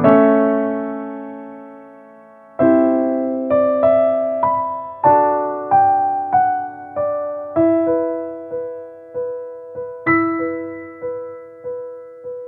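Solo piano music: a chord rings out and fades over about two and a half seconds, then a gentle melody of single notes follows at about two a second.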